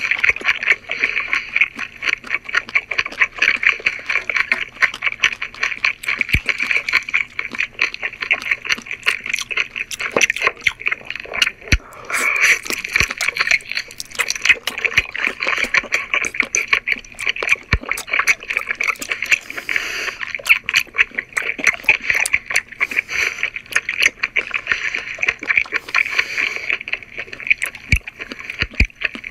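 Close-miked chewing and mouth sounds of a person eating octopus, mukbang style: a dense, continuous run of sharp little clicks and smacks.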